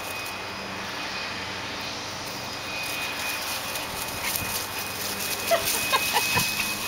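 Small dogs at play giving a few short, high-pitched yips near the end, over steady background noise.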